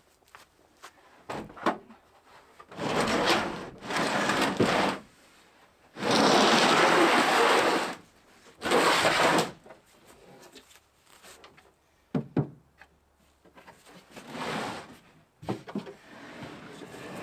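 A series of scraping, sliding noises, the longest and loudest lasting about two seconds, with a few sharp knocks between them, like fittings and drawers being slid and handled during work on a truck camper.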